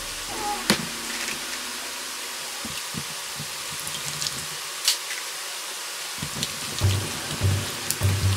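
Bare hands squishing and kneading raw chicken pieces in a wet starch and flour coating in a stainless steel bowl, with a few sharp clicks against the bowl. The wet squelching becomes a steady rhythm of soft strokes about twice a second in the last couple of seconds, over a steady hiss.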